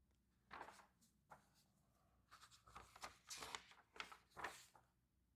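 Faint rustling and handling of the small parts of a carburetor rebuild kit as they are taken out and sorted, in a string of short scratchy bursts.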